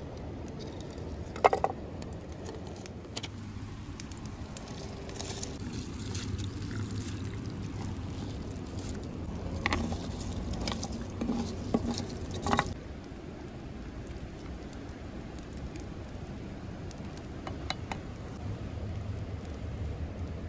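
Rice tipped from a metal bowl into a pot of broth, with a cluster of knocks and scrapes of metal on metal about ten to twelve seconds in. A single sharp knock comes about a second and a half in, over a steady low rumble.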